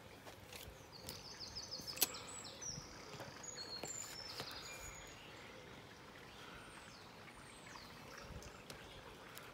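Outdoor garden ambience with small birds chirping, short quick notes and a few falling calls, over light clicks and knocks from the plastic-pipe antenna and its mast being handled; one sharp click about two seconds in is the loudest sound.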